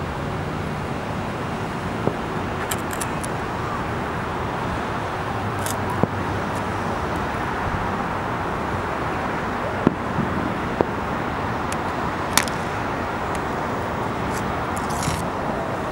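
Distant aerial fireworks going off as about six sharp bangs at uneven intervals, over a steady hum of city traffic.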